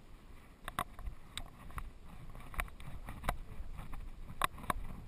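Handling noise from a GoPro strapped to a walking Doberman's back: irregular sharp clicks and knocks over a low rumble as the harness and camera shift with each step on rock.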